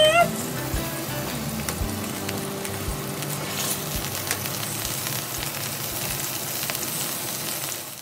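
Marinated beef steaks sizzling steadily on a ribbed grill pan, with a few sharp clicks of metal tongs against the pan as the meat is turned. The sizzle cuts off abruptly at the end.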